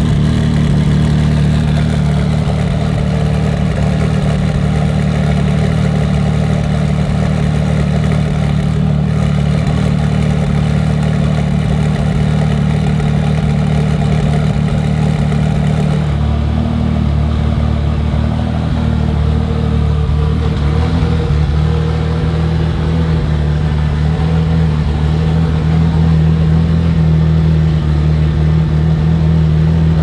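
BMW M4 GT3 racing car's twin-turbo straight-six idling steadily while warming up, the note shifting slightly about halfway through.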